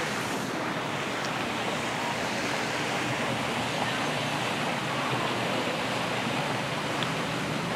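Steady rushing of water, an even hiss that does not change.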